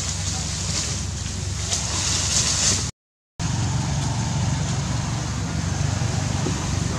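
Steady outdoor background noise with a low hum and a hiss, with no distinct event standing out. It drops out for about half a second roughly three seconds in, then returns unchanged.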